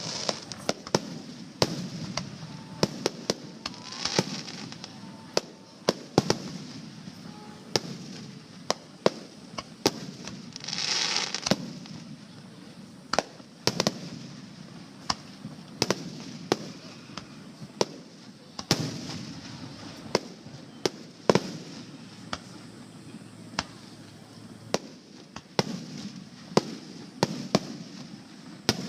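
Fireworks finale: aerial shells bursting in quick, irregular succession, dozens of sharp bangs each with a short echoing tail over a steady low rumble. About eleven seconds in, a longer rushing, crackling burst lasts roughly a second.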